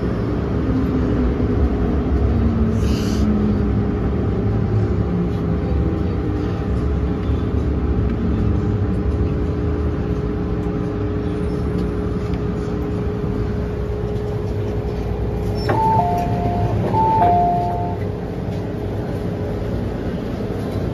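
MTR M-train running into a station from inside the car: a steady rumble with a traction-motor whine falling in pitch as it brakes. Near the end a two-note door chime sounds twice as the doors are about to open.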